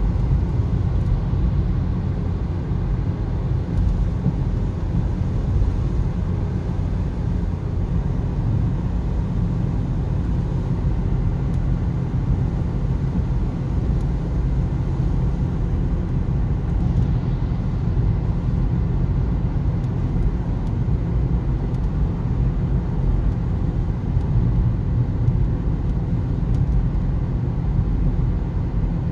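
Steady low rumble of a car cruising on a wet motorway, heard from inside the cabin: tyre and road noise with the engine underneath.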